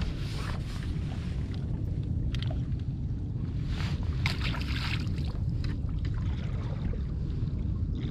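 Steady low wind rumble on the microphone aboard a drifting skiff, with handling noises and a light splash about four seconds in as a sheephead is thrown back into the water.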